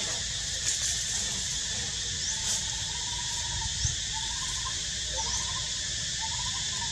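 Steady high hiss of outdoor background ambience, with faint short chirping calls repeating several times from about two and a half seconds in and a few light clicks.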